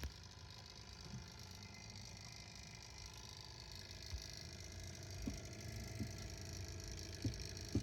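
Small computer-style cooling fans running steadily, with a low hum and faint steady whine, and a few soft knocks in the second half.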